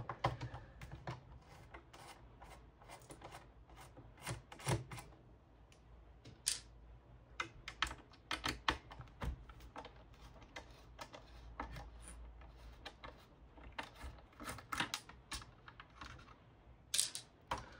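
Irregular light clicks and taps of hands handling a modem's circuit board and plastic housing during disassembly, thickest around the middle and again near the end.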